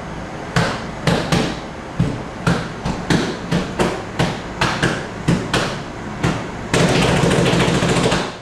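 A run of sharp thumps, about two a second and not quite even, then a dense burst of noise lasting about a second and a half near the end.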